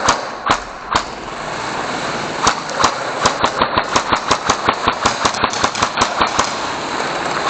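Airsoft guns firing: a few single shots, then from about three seconds in a rapid string of about five shots a second that stops a second before the end, over a steady background noise.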